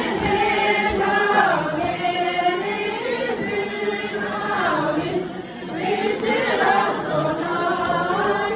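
A group of voices singing together in long held notes that slide up and down between phrases, with a short break for breath about five seconds in.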